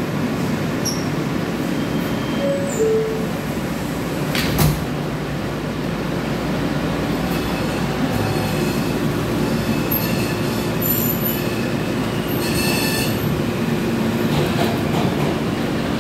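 R160 subway car pulling out of the station and running with a steady rumble. There is a sharp knock about four and a half seconds in. High-pitched wheel squeal on the rails comes in about ten seconds in and lasts a few seconds.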